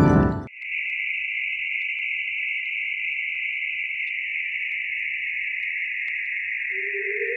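Sonification of space data. A loud, rich ringing chord cuts off about half a second in, followed by a steady, high, hissing tone that slowly sinks in pitch, with faint scattered clicks. Near the end a second, lower tone enters and glides upward.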